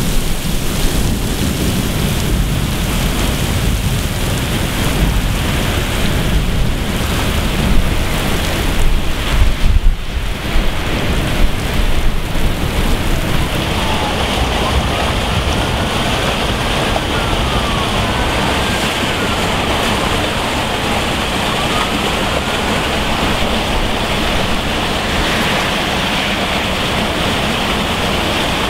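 Heavy rain pouring down, with gusty low rumbling in the first half. About halfway through it gives way to a steady rush of storm runoff pouring into a street drain.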